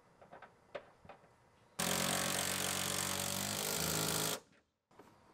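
A power tool, likely a cordless impact wrench, runs a seat belt anchor bolt in with a steady hammering whir for about two and a half seconds, then stops. A few light clicks of parts being handled come before it.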